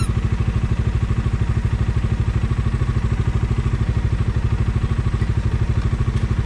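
Bajaj Dominar 250's single-cylinder, liquid-cooled engine idling with a steady, even beat while the motorcycle stands still in traffic.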